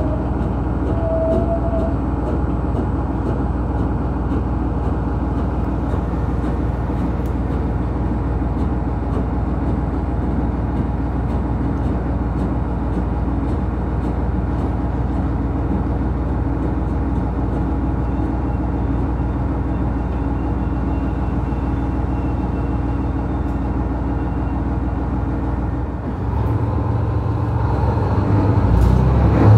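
ET122 diesel railcar under way: the steady drone of its diesel engine mixed with running noise from the rails. Near the end the engine note changes and the sound grows louder.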